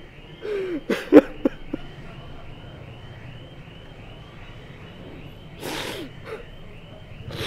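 An elderly man sobbing: a short, wavering, broken cry about a second in, then a wet, snuffling sob near six seconds.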